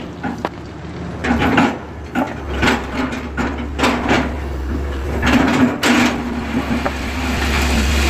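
Metal wrench clicking and knocking on the fittings of a truck's hydrovac brake booster, over a steady low hum.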